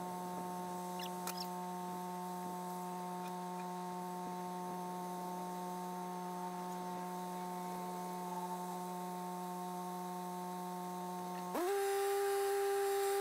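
A steady, even hum on one low pitch with overtones, which jumps to a higher pitch and gets louder about eleven and a half seconds in.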